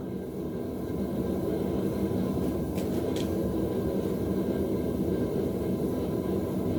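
Steady roar of a blacksmith's forge running while a hammer head heats, with two faint clicks about three seconds in.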